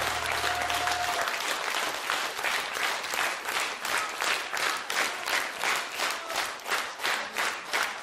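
Audience applause after a song. The applause settles into rhythmic clapping in unison, about two and a half claps a second, as a low note of the music dies away about a second in.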